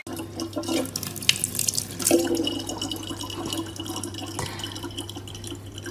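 A thin stream of water running from a tap into the neck of a large plastic water jug, a steady trickle with a low hum underneath.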